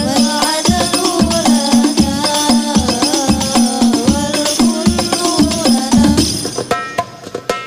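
Women singing an Islamic sholawat in unison through microphones, accompanied by banjari frame drums (terbang) and a deep bass drum on a steady beat. The singing and drumming drop away briefly near the end.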